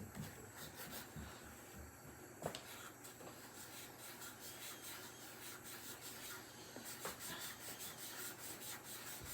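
Faint scratching of a drawing tool on paper, in short, uneven strokes, with a single small click about two and a half seconds in. The strokes come thicker near the end.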